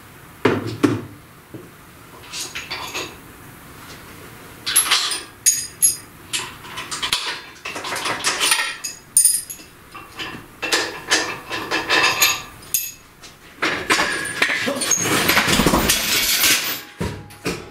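Metal tools clanking and knocking against a steel engine stand. Near the end, a loud crash as a shop engine hoist tips over with an OM617 diesel engine hanging from its chain, and the engine and hoist hit the floor with a heavy thud.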